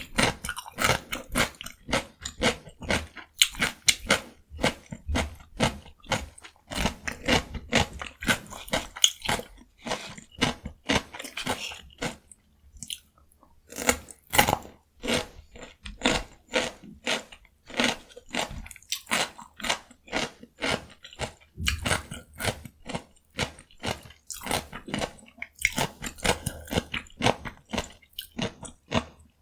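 Close-miked biting and chewing of raw cucumber dipped in gochujang: fast, crisp crunches in a steady run, with a brief pause about halfway through.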